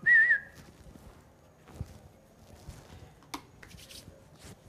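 A man whistling a short warbling note that breaks off about half a second in, followed by a few faint scattered clicks and taps.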